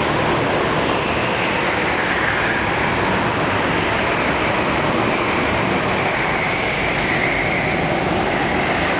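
Go-kart engines running as several karts race around the track, a steady loud drone whose pitch slowly rises and falls as they accelerate and slow.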